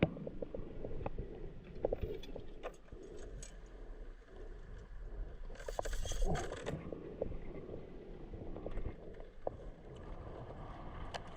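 Scattered light knocks, clicks and rattles of gear being handled aboard a small sailboat at anchor, over a low steady background. A louder scraping patch comes about six seconds in.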